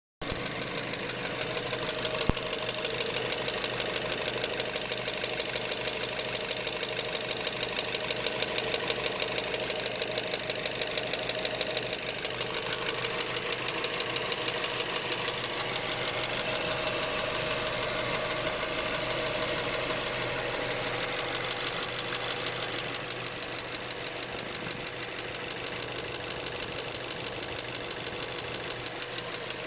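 Mazda 3 (BK) 1.6 engine running with a fast, even ticking that is there all the time.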